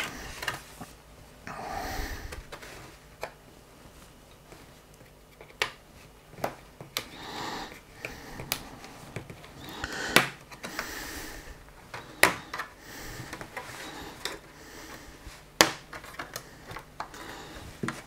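A plastic spudger prying at the seam of an LG Gram 16 laptop's bottom cover: scattered sharp clicks and snaps as the cover edge is worked, with soft scraping and handling noise between them.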